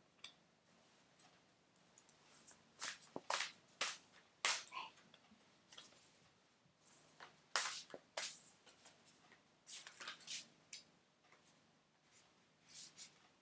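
Postcards being shuffled and handled: quiet, irregular scrapes and flicks of card stock sliding against card.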